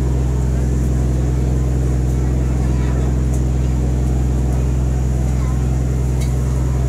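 Steady low drone of a passenger riverboat's diesel engine running under way, with a faint high whine above it.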